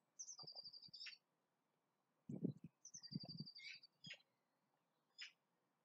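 A man gulping water from a glass, with a few loud swallows about two to three and a half seconds in. A small bird twice sings a quick run of high, rapidly repeated notes in the background.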